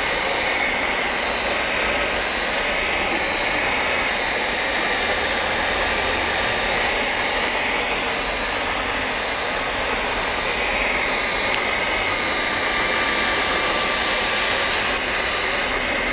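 Hot air plastic welding machine running on its seam: the heat gun's blower rushes steadily with a constant high whine.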